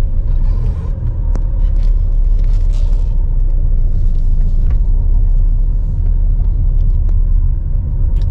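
A car on the move: a loud, steady low rumble of road and wind noise.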